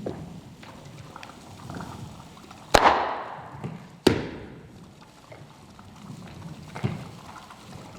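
Two loud sharp bangs just over a second apart, each dying away with an echo, among quieter knocks.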